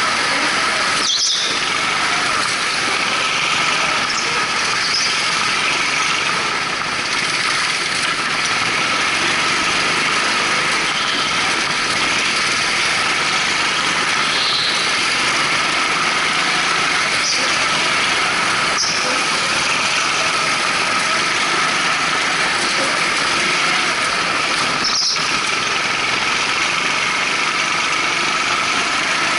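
Go-kart powered by twin Honda GX200 single-cylinder four-stroke engines running steadily at high revs, with short high tyre squeals every few seconds as it is driven through the corners.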